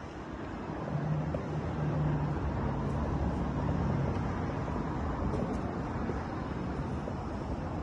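Mercedes-AMG GT Black Series 4.0-litre twin-turbo V8 idling steadily while the car stands still.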